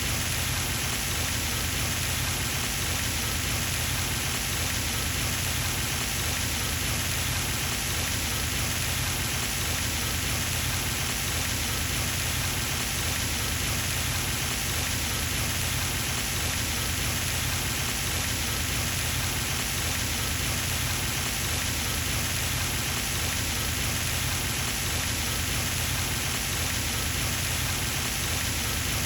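Pond fountain running steadily, its spray splashing back onto the water in an even, unbroken patter.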